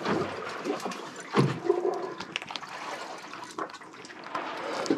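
Seawater sloshing and lapping against the boat's hull, with a few light knocks.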